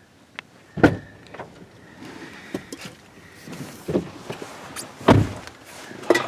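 Knocks, thumps and clicks of movement inside a car. The loudest thumps come about a second in and again about five seconds in.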